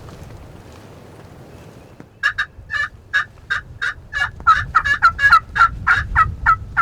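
Turkey yelping: a fast run of about seventeen sharp notes, each breaking from high to low, starting about two seconds in and growing quicker and louder, over a low wind rumble.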